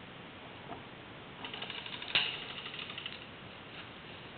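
Airsoft gun firing a full-auto burst, heard as a rapid run of clicks lasting about a second and a half, with one sharper crack in the middle.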